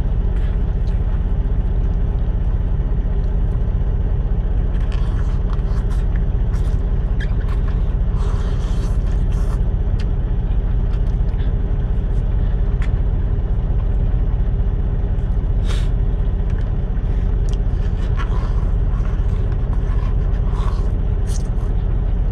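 Steady low idling drone of a diesel engine, heard inside a semi truck's cab, with an even hum over it. Scattered small clicks and slurps of a fork in a paper cup of instant noodles being eaten.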